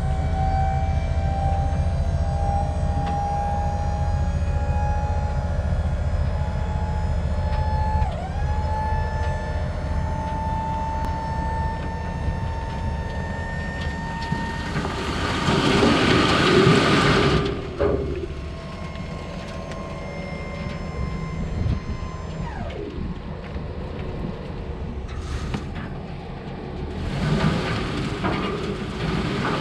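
A vehicle engine running on the road while towing a loaded dump trailer, its pitch climbing slowly, then dipping suddenly about eight seconds in as it shifts up. A loud rush of noise lasts about three seconds midway, and noise swells again near the end.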